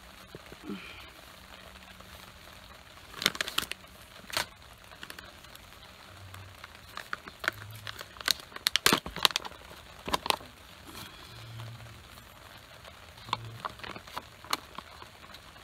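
Foil-lined freeze-dried meal pouch being handled and opened, giving short irregular crinkles with a few sharper crackles.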